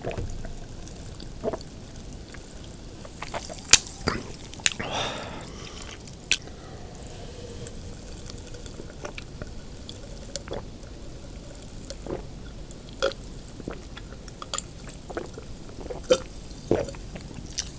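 Close-miked eating sounds: scattered wet mouth clicks and smacks, with a brief wet rush about five seconds in.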